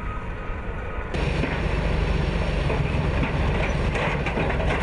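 Quiet outdoor background, then about a second in a BMD-2 airborne fighting vehicle's diesel engine running loudly with steady low rumble as its tracks clatter up onto a low-loader trailer.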